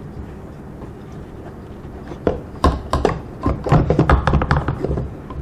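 Handling noise as a dummy rifle grenade and kit are pushed into the compartments of a canvas grenade-launcher pouch: a quick run of knocks and clunks, starting about two seconds in.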